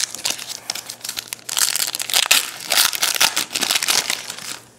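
Wrapper of a Panini Contenders basketball card pack being torn open and crinkled by hand, the crackling getting louder about a second and a half in and stopping just before the end.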